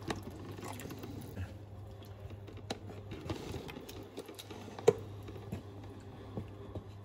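Wooden spatula stirring a milk and tomato sauce in a non-stick frying pan: soft scattered clicks and taps, with one sharper tap about five seconds in, over a low steady hum.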